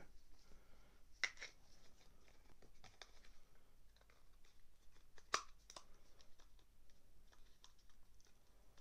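Faint clicks and rustles of hard plastic toy parts being handled: the red helmet and saddle armour of a Battle Cat action figure. Two sharper clicks come about a second in and about five seconds in, the second the louder.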